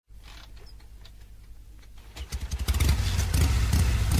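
Harley-Davidson Evolution 1340 V-twin of a 1991 Softail starting: a faint low hum and a few clicks, then about two seconds in the engine catches and runs with a loud low pulsing.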